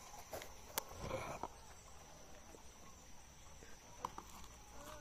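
Insects singing a steady, high, unbroken trill in garden vegetation. There is a short rustle about a second in and a few sharp clicks.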